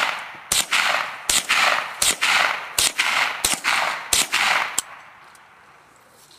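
Lakefield Mossberg .22 LR rifle fired rapidly: about seven sharp shots roughly three-quarters of a second apart, each followed by a short echo, then the firing stops.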